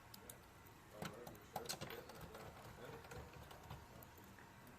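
A few faint, scattered clicks and light taps, the sharpest about a second in and two more soon after, over a quiet room background.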